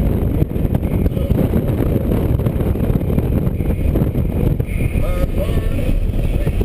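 Inside the cabin of a 2013 Scion FR-S at track speed: its 2.0-litre flat-four engine running under load, with a heavy low rumble of road and wind noise on the microphone.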